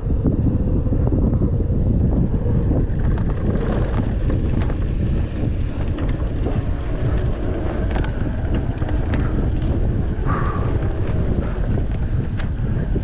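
Wind buffeting the camera microphone on a mountain bike riding a dirt singletrack, over a steady rumble of tyres on the trail, with scattered rattles and knocks from the bike. A brief squeal about ten seconds in.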